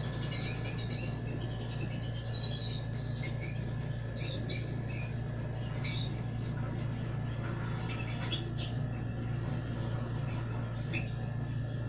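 Lovebirds chirping in short, high, rapid bursts at intervals while they feed from a spoon, over a steady low hum.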